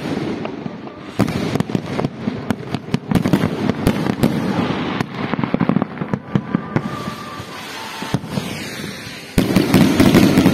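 Fireworks going off: a dense run of bangs and crackles from bursting shells, becoming suddenly louder and thicker about nine seconds in.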